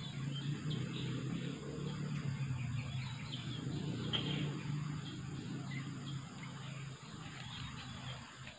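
Scattered short bird chirps over a steady low hum that fades near the end.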